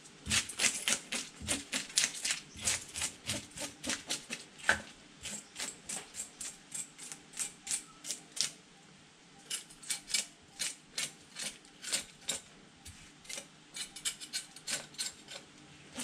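A knife scraping the scales off a large tilapia on a wooden board: quick, sharp scraping strokes, about three or four a second at first, then a little sparser after a short pause past the middle.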